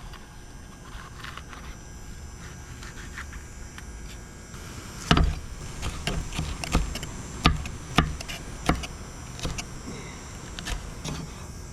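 Kitchen knife slicing a bell pepper and striking a cutting board: quiet at first, then from about five seconds in a string of sharp knocks, roughly one or two a second.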